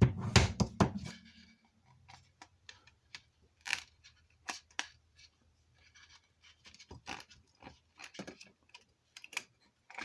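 A knife blade prying a lithium battery out of a plastic hotspot casing: irregular scraping and sharp clicks of blade on plastic and battery. The loudest knocks come in a cluster in the first second.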